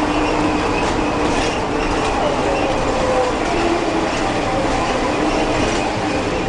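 Mercedes-Benz O-500UA articulated bus under way, its OM-457 LA six-cylinder diesel running steadily with the ZF six-speed automatic gearbox, with a whine whose pitch shifts up and down and a few light rattles from the body.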